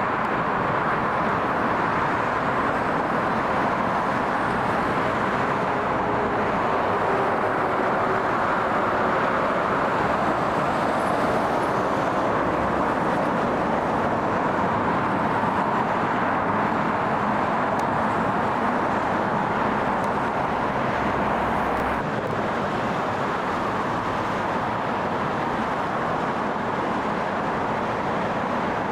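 Aircraft engines running steadily: an even rushing noise with no distinct pitch, a little quieter after an abrupt change about 22 seconds in.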